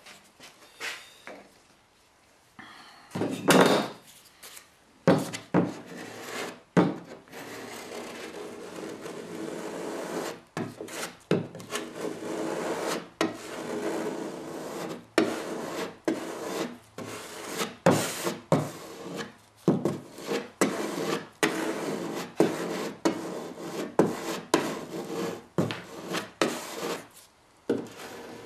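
Metal putty knife scraping and spreading epoxy fairing compound over a plywood hull patch, in quick repeated rasping strokes. The strokes start about three seconds in and stop shortly before the end.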